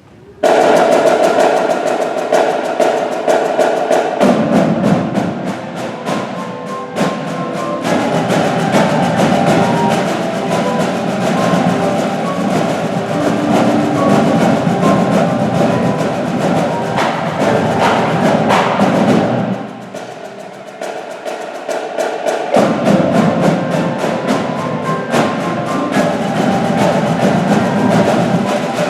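Percussion ensemble of drumline and mallet instruments (marimbas, xylophone, vibes) playing a triple-accent exercise in 12/8: fast, dense drum strokes over sustained mallet notes. It starts sharply, drops to a quieter passage about twenty seconds in, then comes back up.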